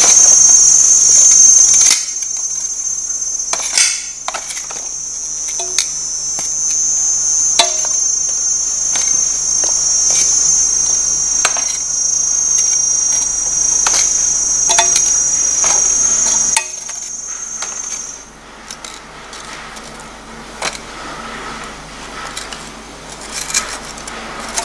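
A steady, high-pitched chorus of insects, with scattered light clicks and knocks as pieces of sugarcane are laid in a pot over fish. The insect sound cuts off about eighteen seconds in.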